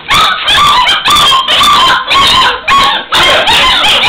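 A litter of young puppies crying, yelping and howling all at once: many overlapping high-pitched cries.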